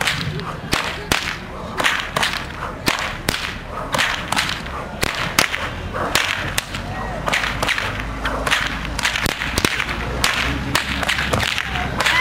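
Two whips, one in each hand, cracked over and over in a steady run of sharp cracks, roughly two or three a second.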